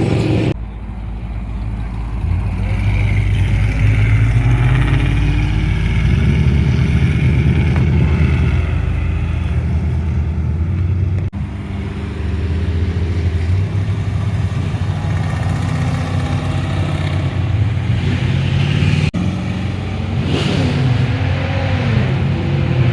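Car engines running and being revved, the engine note climbing and falling. Near the end the pitch rises and falls more sharply. The sound changes abruptly a few times.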